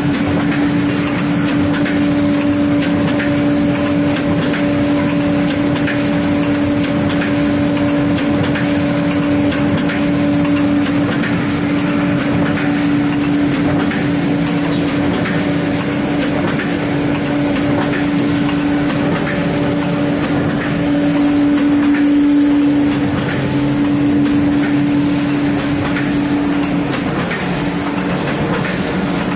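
Hydraulic press baler's power unit running: a steady pump whine with a fainter higher overtone over a clattering mechanical background, the whine breaking off briefly near the end.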